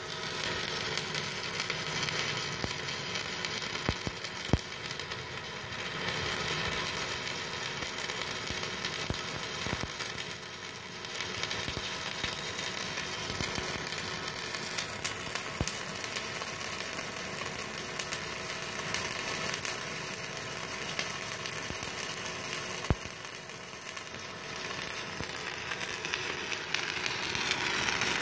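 Stick-welding arc of a 4 mm E6013 electrode at 150 amps from a Multipro EG 200A-SC inverter welder: a steady crackle and sizzle as the rod burns down, easing briefly a few times, with a couple of sharp pops.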